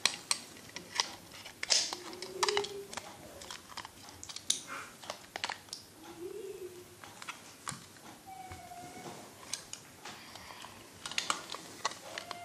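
Irregular sharp clicks and rattles of hard plastic Beyblade launcher-grip and launcher parts being handled and snapped together.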